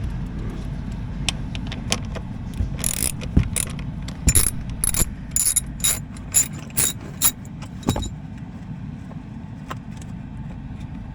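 Ratchet wrench clicking in a run of short strokes as a 10 mm bolt is backed out, about two clicks a second for some five seconds, starting a few seconds in.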